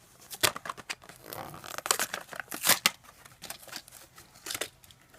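Hot Wheels blister packs being torn open by hand: irregular ripping of the cardboard backing and crinkling of the plastic bubble, with sharp tears around the middle.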